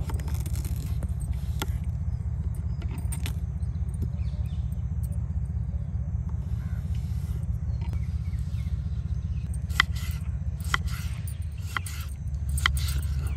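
Serrated knife cutting a fresh cucumber on a wooden chopping board: a few crisp cuts, then several quick knife taps on the board close together near the end. A steady low rumble runs underneath.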